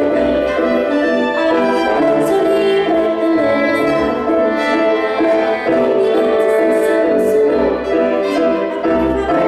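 Live band music playing steadily at a sound check.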